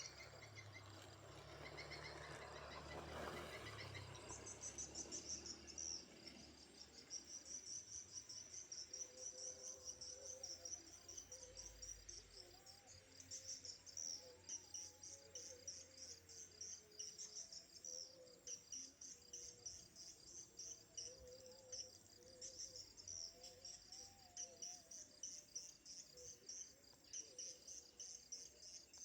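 Swiftlets twittering: faint, rapid high-pitched chirps repeating several times a second, over a fainter wavering lower note.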